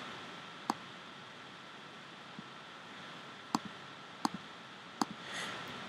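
Computer mouse clicking: one sharp click about a second in, then three more spaced under a second apart near the end, some with a faint second tick as the button is released, over a steady low hiss.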